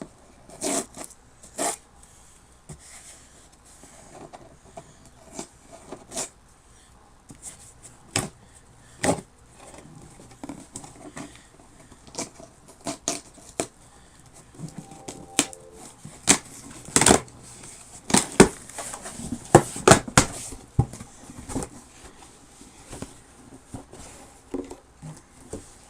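Handling and opening of a mailed package: irregular sharp crackles, rustles and knocks of packaging, coming thickest about two-thirds of the way through.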